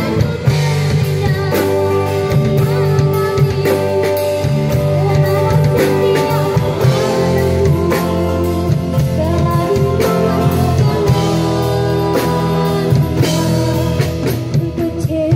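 A young girl singing through a microphone with a live band: acoustic guitar and drum kit playing along.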